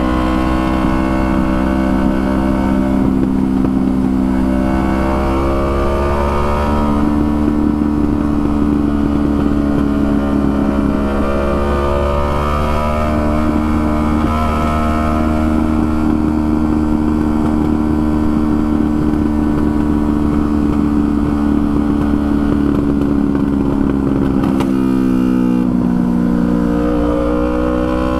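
Yamaha R3's 321 cc parallel-twin engine running at a steady pull while riding. The pitch steps up about six seconds in, and near the end it drops, then climbs again as the bike accelerates.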